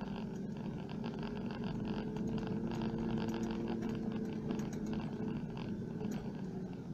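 A 4WD's engine running steadily as it drives along a rough dirt track, heard from inside the cab, with a constant low drone and frequent small rattles from the vehicle.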